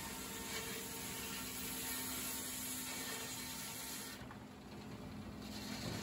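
Circular sawmill machinery running, heard faintly: a steady mechanical hum with a few held tones.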